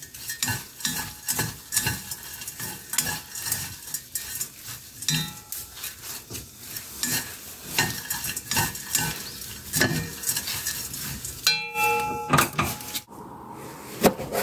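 Dried anchovies being dry-roasted and tossed in a pan with wooden chopsticks: a steady, irregular rustle and clicking of the small dry fish against the pan and the sticks. Near the end a single sharp knife chop through green chili peppers on a cutting board.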